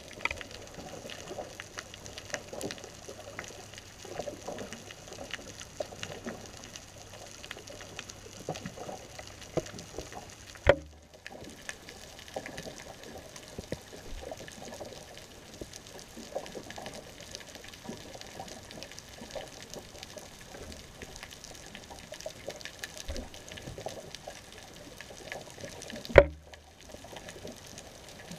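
Underwater sound picked up through a GoPro's waterproof housing resting on the sea bottom: a muffled crackling hiss full of faint ticks. A sharp knock comes about 11 seconds in and another near the end, each followed by a brief dropout.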